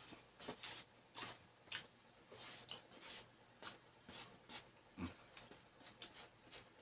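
Close-up eating sounds: a string of irregular soft clicks and smacks from chewing, mixed with a metal spoon scraping and tapping in a styrofoam takeout box, with one duller knock about five seconds in.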